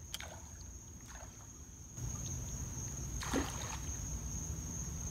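Quiet water ambience around a small boat at night: low lapping and rumbling water noise that grows about two seconds in, under a steady thin high whine. A single brief swish a little over three seconds in.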